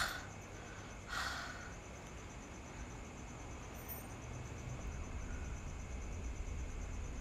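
A person walking with a phone: low movement and handling rumble, a knock right at the start, and a short breathy exhale about a second in.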